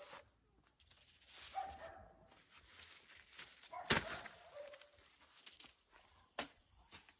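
An animal calling outdoors: short pitched calls, one about a second and a half in and another about four seconds in. A sharp knock comes about four seconds in, and another about six seconds in.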